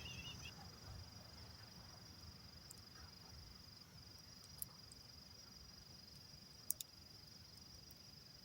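Faint, steady high-pitched insect trill, cricket-like, continuing unbroken, with two brief faint clicks near the middle and later on.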